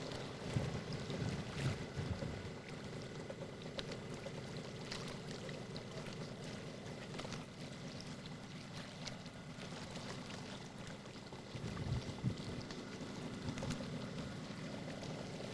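Wind buffeting the microphone over choppy lake water, with gusty low rumbles near the start and again late on, and a faint steady high whine underneath.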